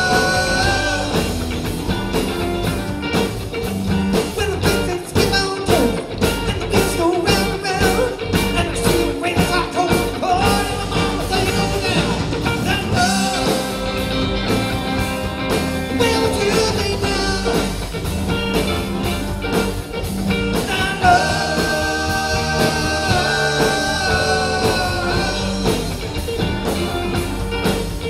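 A live band playing a rock-and-roll tune, with guitar over a steady drum beat.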